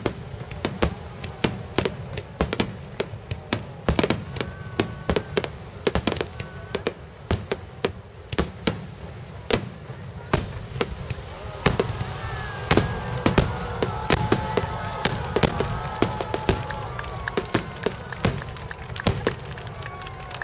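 Fireworks finale: aerial shells bursting in a rapid, continuous barrage of sharp bangs. Crowd voices rise over it past the middle.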